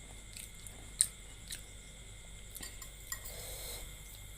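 A few light clicks and clinks of eating utensils against a bowl, the sharpest about a second in, during a noodle meal.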